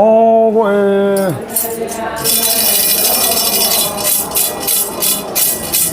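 A voice sings a drawn-out 'go go e' refrain for about the first second and a half. A metal rattle then takes over, shaken in a fast, steady beat of about four to five strokes a second.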